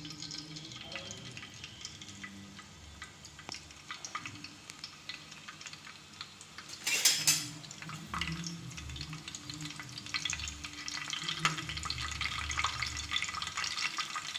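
Curry leaves crackling and sizzling in hot oil on a flat griddle. The crackle thickens toward the end, with one brief loud burst of noise about halfway through.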